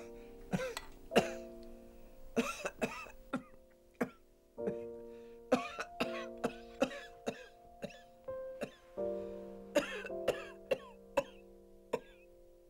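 Elderly woman coughing over and over in short, sharp fits, over background music of slow held chords.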